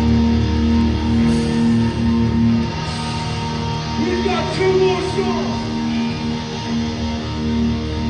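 Hardcore punk band playing live through a festival PA: a distorted electric guitar riff repeating in even pulses, its deep low end thinning out about three seconds in. A shouted vocal line comes in about four seconds in.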